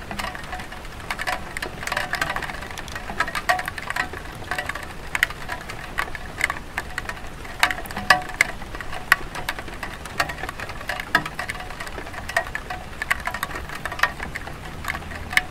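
Light rain falling on a tile roof: a steady wash of rain dotted with many irregular, sharp drop taps, some louder than others.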